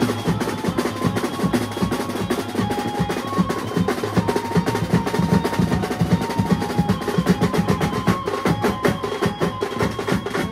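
Banjo band playing live: fast, busy drumming with a held melody line over it, stopping right at the end.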